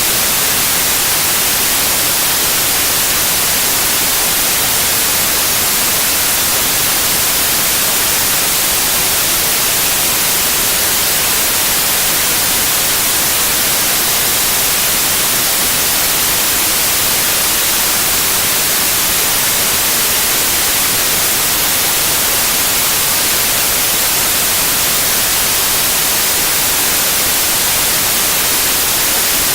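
Loud, steady white noise: an even hiss that does not change, strongest in the treble.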